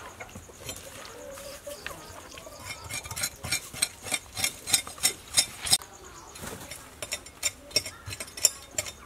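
Knife scraping the salt-rubbed skin of a large fish head in a plastic basin to clean it: quick repeated strokes, about three a second, with a short pause partway through.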